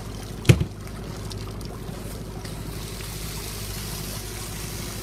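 Steady low drone of an idling boat engine, with one sharp knock about half a second in.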